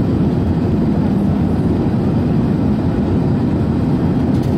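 Steady low cabin rumble of an Airbus A380-842 in cruise, heard inside the cabin from a window seat over the wing.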